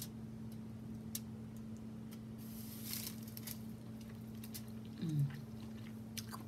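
Close-up eating sounds from someone eating sauce-covered lobster: scattered wet mouth clicks, a brief wet smack about two and a half seconds in, and a short hummed "mm" about five seconds in, over a steady low hum.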